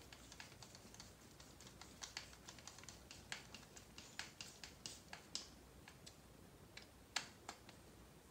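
Faint, irregular small clicks and ticks of a 2 mm hex driver being turned by hand, driving screws through an RC car's plastic transmission case into its brace.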